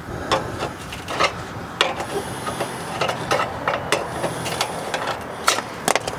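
Steel pry bar scraping and knocking against a rusted-on exhaust flange as it is levered off the pipe: irregular sharp metal taps and clicks over a rough scraping.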